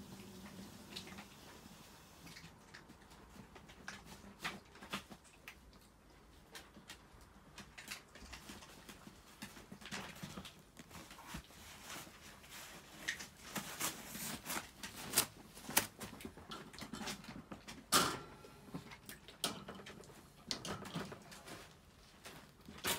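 Chihuahuas moving about in wire dog crates: scattered clicks, taps and light rattles, sparse at first and coming more often in the second half.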